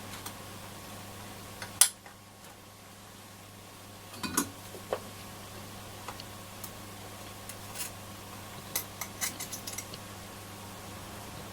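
Scattered small metallic clicks and taps of hand tools on a circuit board as desoldered wires and component legs are worked loose, over a steady low hum. One sharp click comes about two seconds in, a few more around four to five seconds, and a quick run of light clicks near the end.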